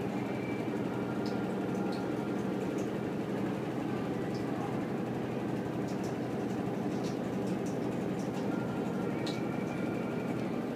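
Samsung top-load washing machine running mid-cycle: a steady hum from the turning drum with the swish of water and laundry, and faint scattered ticks.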